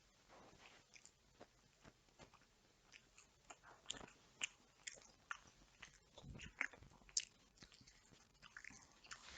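Faint mouth sounds of someone eating chicken: a stream of small chewing clicks and smacks that begins about half a second in and grows denser and louder toward the end.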